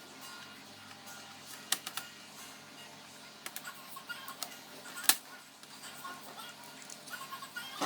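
Scattered sharp clicks and taps of plastic from handling a laptop's case and keyboard, over faint background music.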